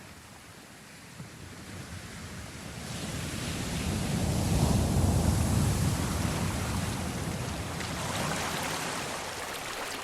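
Ocean surf: a wave builds and breaks about halfway through, followed by a second hissing wash near the end.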